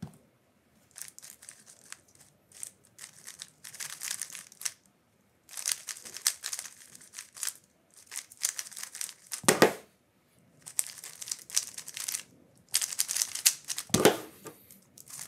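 DaYan GuHong Pro Maglev 3x3 speedcube being turned fast in a solve: quick runs of plastic layers clicking and rasping, broken by short pauses. Two louder knocks come about two-thirds of the way in and near the end.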